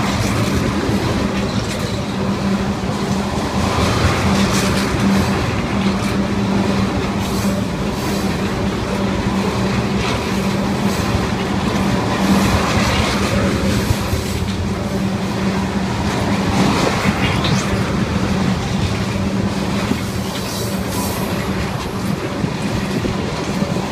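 Freight train of tank cars rolling past: a steady rumble of steel wheels on the rails with a low hum, clacking over the rail joints, and a few brief wheel squeals.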